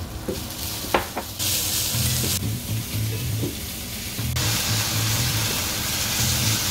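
Sliced mushrooms, onion and minced garlic sizzling in a frying pan as a spoon stirs them, with a light tap of the spoon about a second in. The sizzle surges twice, the second time from about four seconds in and holding.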